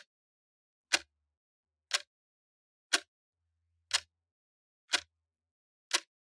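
Clock ticking evenly, one sharp tick each second.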